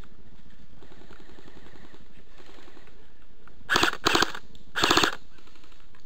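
Airsoft guns firing three short automatic bursts, each a quick rattle of shots; the first two come close together and the third follows about half a second later.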